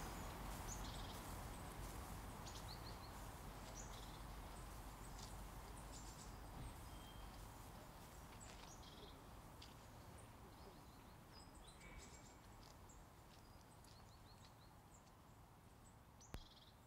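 Faint outdoor ambience of small birds: scattered short, high chirps and calls over a soft hiss, slowly fading out, with one short click near the end.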